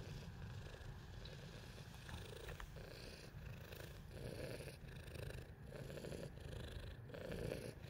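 Tabby cat purring close to the microphone: a low, continuous purr that pulses in a regular rhythm, about one and a half swells a second.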